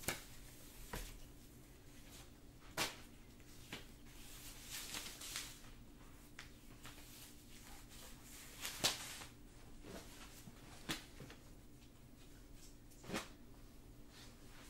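Quiet rustling of lingerie fabric and elastic straps as a strappy one-piece is pulled on, with about eight scattered soft clicks and taps from handling, the sharpest near the middle.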